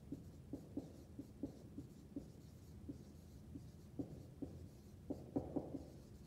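Dry-erase marker squeaking and tapping on a whiteboard as words are written: a run of short, irregular squeaks and strokes.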